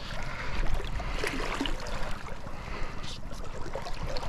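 Steady rushing of a fast-flowing river, with a few faint short sounds over it.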